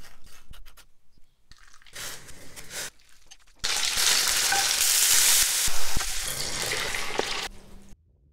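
Tofu cubes frying in oil in a pan as a wooden spatula stirs them: a loud, steady sizzle lasting about four seconds that cuts off near the end. Quieter, shorter kitchen scrapes and rustles come before it.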